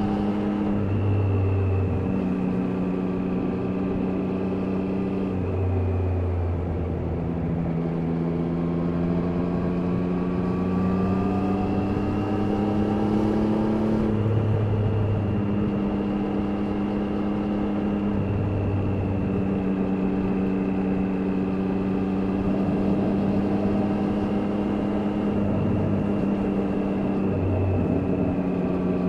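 Triumph Daytona 660's three-cylinder engine running under way, its pitch climbing slowly and then dropping in steps several times as the throttle and gears change, over steady riding noise.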